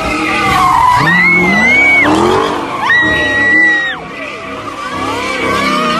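A car's tyres screeching in two long squeals, each about a second, as it spins donuts, with the engine revving up beneath the first. Crowd voices and shouts are mixed in.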